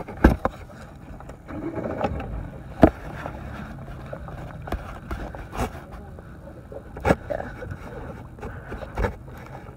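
Handling noise from a spinning rod and reel being cranked while fighting a hooked striped bass: irregular sharp knocks about every second or two over a steady low rumble.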